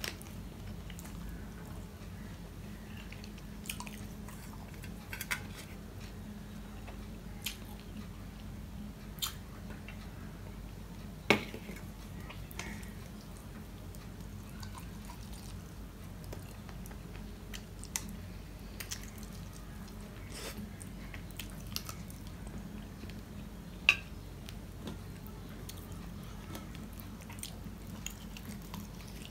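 A man eating rice and shoil fish curry with his fingers from a steel plate: fingers mixing and squishing the food, with chewing and wet mouth sounds. Small clicks are scattered throughout, two sharper ones about eleven and twenty-four seconds in, over a steady low hum.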